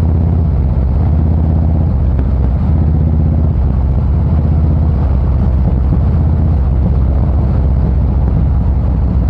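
Harley-Davidson Fat Boy Special's air-cooled V-twin running under way through a Supertrapp variable aftermarket exhaust, heard from the rider's seat. Its note changes a few times in the first four seconds and then holds steady.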